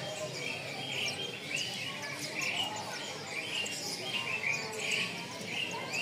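A cage full of olive-backed sunbirds (sogon) chirping, with many short high chirps overlapping again and again, over the low murmur of a busy market.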